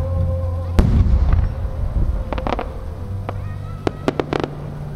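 Aerial firework shells bursting: a loud boom about a second in with a low rumble trailing after it, then quick clusters of sharp pops around the middle and again near the end.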